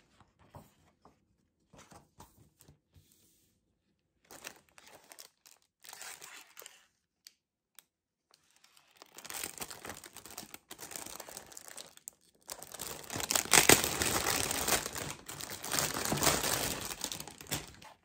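Scattered light rustles, then from about nine seconds a clear plastic bag crinkling continuously as a boxed doll is slid out of it, loudest in the last few seconds.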